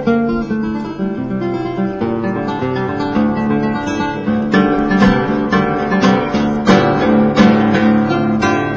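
Background music on acoustic guitar: a run of plucked notes and chords.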